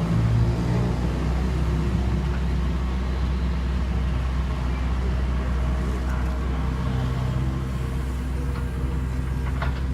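Kobelco SK75UR mini excavator's diesel engine running steadily at working speed, with a couple of sharp knocks near the end.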